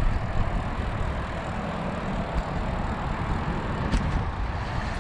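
Wind buffeting the microphone of a bicycle's handlebar camera while riding, a steady low rumble with a single click about four seconds in.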